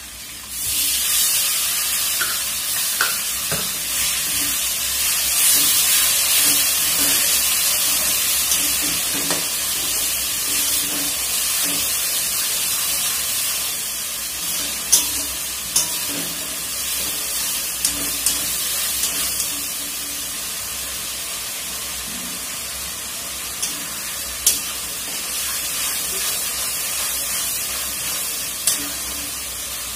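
Onion paste frying in hot oil in a wok: the sizzle jumps up about half a second in as the paste goes in, then settles to a steady hiss while a metal spatula stirs it. A few sharp clicks of the spatula against the pan come in the second half.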